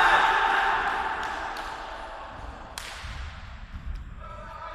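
A few sharp slaps of a football being struck, echoing in a large sports hall, over a wash of noise that dies away. Faint voices come in near the end.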